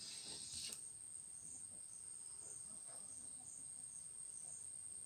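Faint insect chirping, crickets by ear: a steady high trill with soft chirps about once a second. A couple of faint knocks in the first second.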